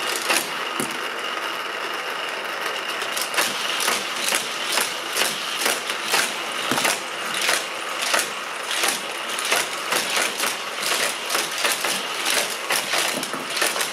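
Hot Wheels Criss Cross Crash track running: its battery-powered motorized booster rollers give a steady, noisy whir while small die-cast cars shoot around the loops. From a few seconds in, the cars clack against the track about twice a second.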